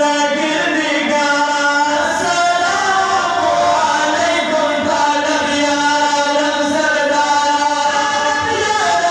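Male voices chanting a devotional Islamic recitation, drawn-out notes held for a second or more and stepping up and down in pitch.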